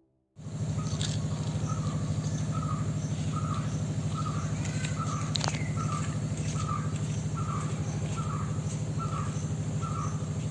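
Outdoor nature ambience: a bird repeats a short chirp at an even pace, about one every half second or so, over a steady high insect trill and a low pulsing hum. It cuts in sharply just under half a second in.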